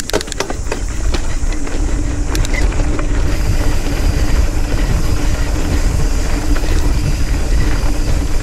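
Nukeproof Scout 275 hardtail mountain bike ridden fast down a loose dirt trail: wind buffeting the microphone and tyres rumbling over the ground, with sharp rattles and knocks from the bike over rough ground in the first three seconds.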